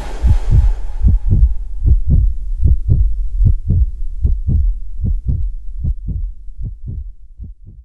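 Outro sting: a steady run of deep, evenly paced bass thumps, about three to four a second, growing weaker and stopping at the end, over a hiss that dies away in the first second or so.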